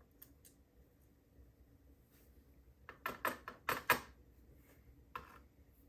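Small metal lock parts and tools clicking while a padlock core is taken apart and its pins removed: a few faint ticks, then a quick cluster of sharp clicks about three seconds in, and one more click near the end.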